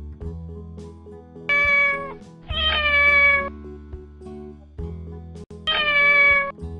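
Domestic cat meowing three times: a short meow about a second and a half in, a longer one just after, and a third near the end.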